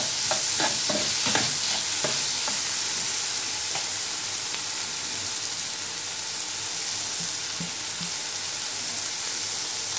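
Chopped onion and tomato frying in oil in a non-stick pan, sizzling. A steel spoon stirs and clicks against the pan a few times in the first couple of seconds, then the sizzle goes on alone at a steady level.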